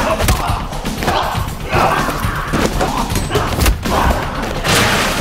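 A rapid series of dubbed-in fight sound effects: punches, body hits and heavy thuds landing in quick succession, over a music track.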